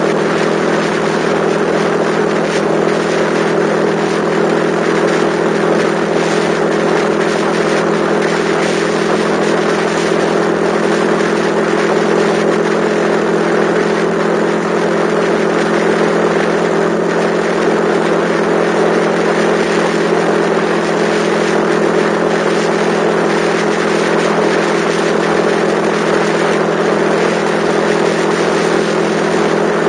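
Yamaha XTZ125's single-cylinder four-stroke engine running at a steady cruising speed, its pitch unchanging, over a steady rush of wind and road noise.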